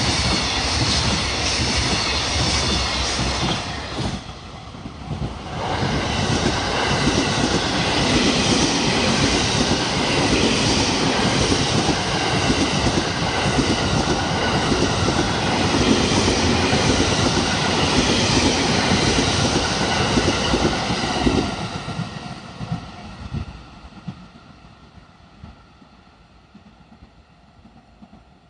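Freight train passing at speed, its wheels clattering steadily over the rail joints with a brief lull about four seconds in. About 22 seconds in the noise falls away and fades as the end of the train goes by.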